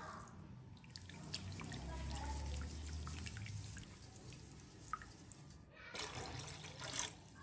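Water poured from a vessel into a metal pot of simmering fish curry, a splashing hiss lasting about a second and a half near the end. Before that, a low rumble and scattered light clicks as the pot is gripped and swirled.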